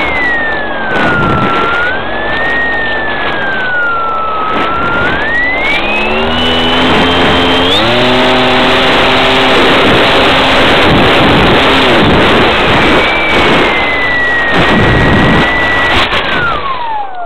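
Wing Dragon Sportster's brushless electric motor and propeller whining, heard from a camera on the plane over a steady rush of air, the pitch rising and falling with the throttle. Near the end the whine falls steeply and dies away as the motor winds down with the plane on the ground.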